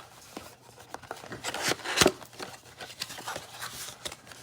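Football trading cards and pack wrappers being handled by hand: a run of light clicks, slides and rustles, with one sharp snap about two seconds in.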